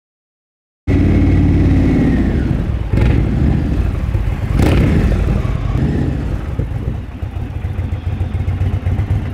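Large touring motorcycle engine running and revving, starting abruptly about a second in after silence, with two short knocks along the way.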